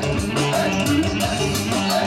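Live dance music: a clarinet playing the melody over a fast, steady drum beat.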